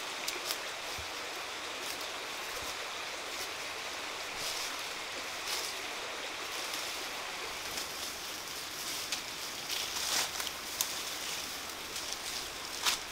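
Leaves rustling and dry brush crackling as people walk through forest undergrowth, with a few sharper crackles over a steady hiss.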